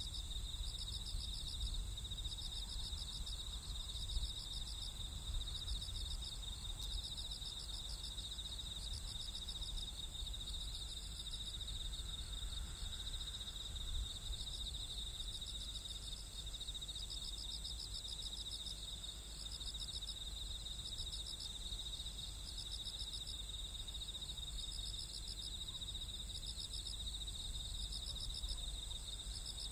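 Night insect chorus: crickets holding a steady high trill, with chirping phrases repeating a little over once a second, over a low, even background rumble.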